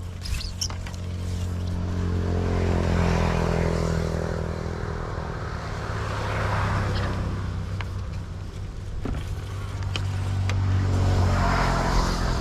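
Small engine running steadily, picking up speed over the first couple of seconds, easing off a little past the middle and picking up again near the end.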